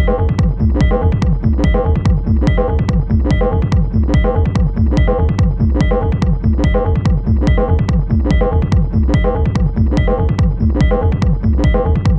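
Techno music: a steady electronic beat of sharp, evenly spaced percussion ticks over a repeating synthesizer bass line.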